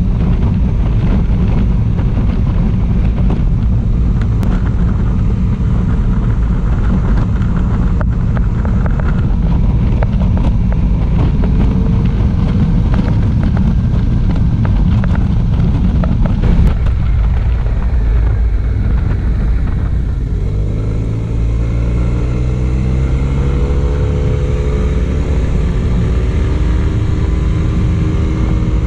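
Honda Silver Wing 400 maxi scooter's parallel-twin engine running under way, heard onboard with wind rushing over the microphone. About twenty seconds in the engine eases off briefly, then its note climbs steadily as the scooter accelerates again.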